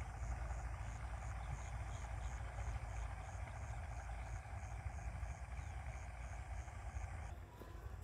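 Open-field ambience: a steady low wind rumble on the microphone under a high-pitched insect chirping evenly at about three pulses a second. The chirping and the background hiss drop away about seven seconds in.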